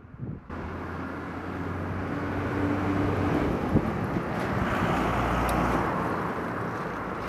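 A vehicle running, a steady engine hum under a rush of wind and road noise. It starts abruptly about half a second in, swells, then eases off.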